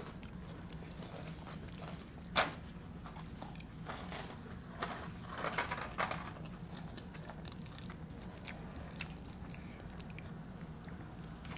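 Close-up eating sounds: crisp bites and crunching of tortilla chips with chewing in between. One sharp crunch about two and a half seconds in, and a run of crunches around five to six seconds.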